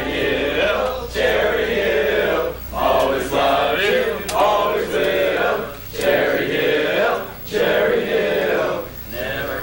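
A group of teenage boys singing together in unison, in phrases of about a second and a half with short breaks between them.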